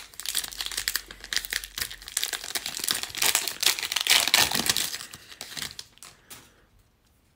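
Foil trading-card pack being torn open and crinkled by hand: a dense crackling of the wrapper that dies away about six seconds in.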